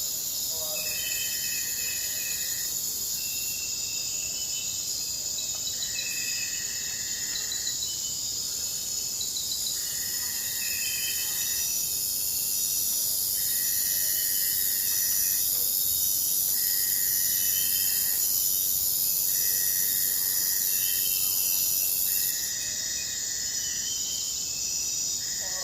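Jungle insect chorus: several steady, high-pitched insect trills layered together, one of them pulsing in calls of a second or two about every two and a half seconds, over a high hiss that swells louder through the middle.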